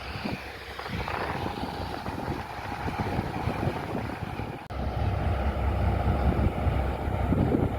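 Wind buffeting the microphone, a rough, noisy rush. About two-thirds of the way through the sound cuts off abruptly, and a heavier, steady low rumble takes over.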